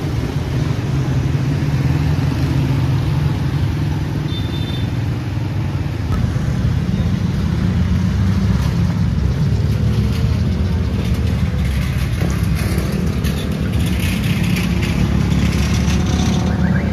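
Street traffic: motor vehicle engines running, a steady low drone, with some short clatter in the second half.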